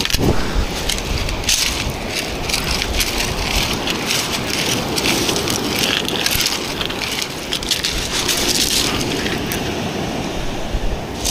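Shingle beach pebbles crunching and clattering as someone shifts about on them, many small stone-on-stone clicks throughout, with wind rumbling on the microphone.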